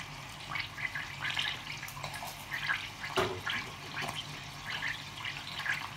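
Raw chicken pieces sizzling and sputtering in hot oil in a steel pot, an irregular crackle with one sharp knock about three seconds in.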